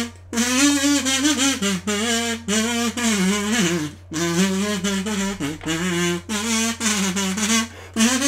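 A kazoo buzzing out an anime opening tune in short melodic phrases, with brief breaks between them and a steady low hum underneath.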